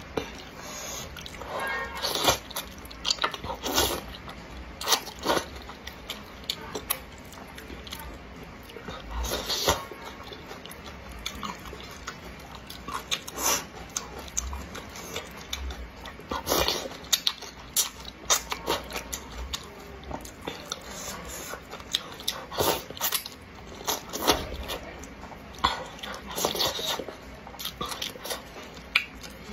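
Close-miked eating of wide flat noodles in chili oil: wet chewing and slurping, with irregular sharp mouth smacks and clicks.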